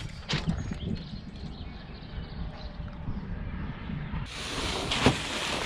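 Wind buffeting the microphone as a low, uneven rumble, with a few sharp knocks, the loudest about five seconds in.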